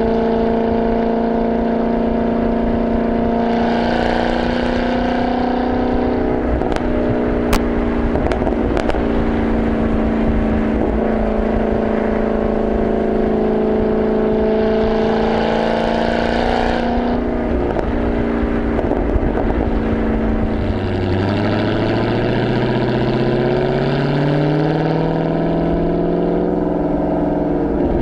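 Supercharged 6.2-litre Hemi V8 of a Dodge Charger Hellcat, heard right at the tailpipe through a Corsa Xtreme exhaust while driving: a steady, loud exhaust note with a few sharp cracks about seven to nine seconds in, and revs climbing steadily over the last several seconds as the car accelerates.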